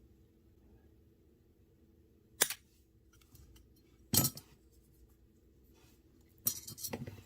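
Small metal clinks and clicks as a pocket folding knife is taken apart by hand: three sharp clinks, about two seconds apart, the last a quick rattle of several.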